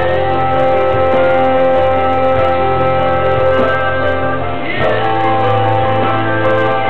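A girl singing over a backing music track, with the accompaniment's notes held long beneath her voice and shifting about two-thirds of the way through.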